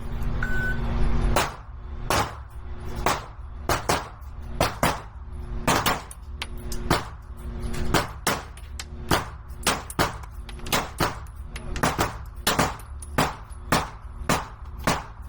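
A string of pistol shots at a shooting range, irregularly spaced at roughly one to two a second, over a steady low hum.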